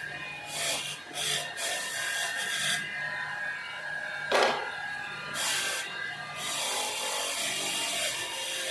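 A series of short scraping or rubbing strokes with one sharp knock about four seconds in, over a faint steady high whine.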